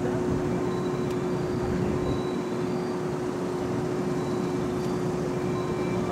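Railway station ambience: a steady hum over a low rumble, with the approaching train still far off and no distinct passing sound yet.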